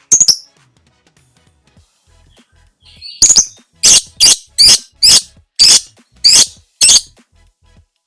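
Lovebird calling: a short screech at the start, then after a pause a run of about nine shrill, piercing screeches at roughly two a second, the long "ngekek" chatter.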